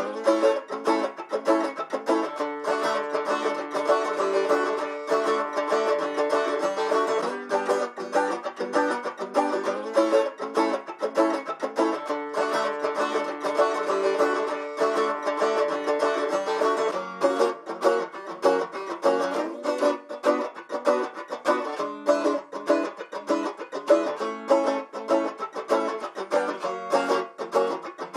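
Background music led by a plucked string instrument, with quick picked notes and a steady rhythm.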